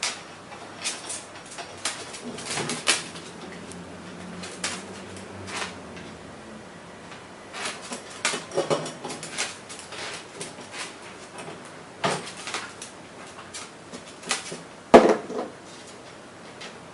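Pet parrot making scattered short clicks and knocks, with a few brief harsher sounds about eight and a half seconds in and a louder one about fifteen seconds in.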